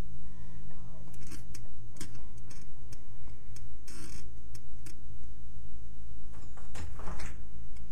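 Steady low electrical hum, with scattered faint clicks and short rustles over it.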